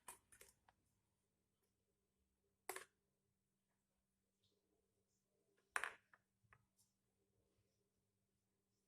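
A few sharp knocks and clicks with near silence between them: a small cluster at the start, a single knock a few seconds in, the loudest knock about two thirds of the way through, then a lighter one.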